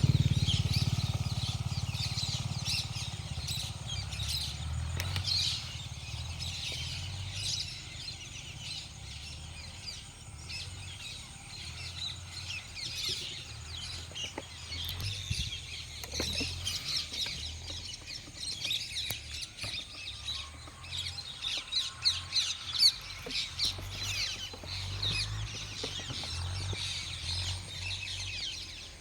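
Many small birds chirping and twittering without a break, over a low, uneven rumble.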